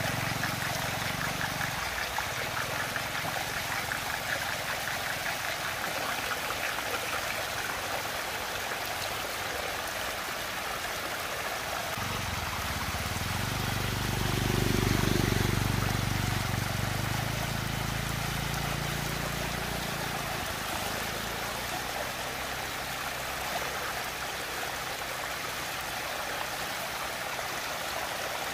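Water rushing and swirling steadily down a whirlpool vortex. A low hum swells in the middle and fades out toward the end.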